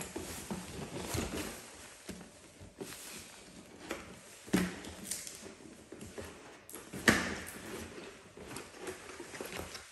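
Cardboard packaging being handled: a printed outer sleeve sliding off a speaker box and the box's stiff folding flaps being pulled open, with irregular rustling scrapes and a few sharp knocks, the loudest about seven seconds in.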